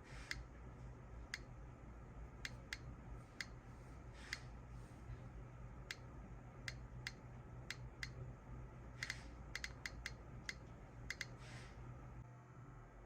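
Radiation detector clicking once for each count as it measures a smoke detector's radioactive source. The clicks are sharp and come at random intervals, one or two a second, sometimes in quick pairs, over a low steady hum.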